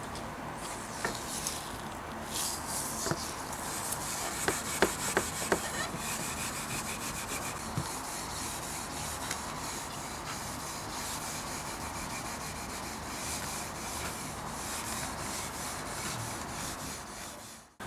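Steady hand rubbing, as of sanding or scrubbing a part, with a few sharp clicks about one to six seconds in. It cuts off abruptly just before the end.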